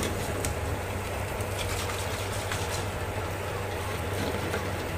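Mutton and ground spices with a little water sizzling and bubbling steadily in a cooker pot on low heat, over a steady low hum.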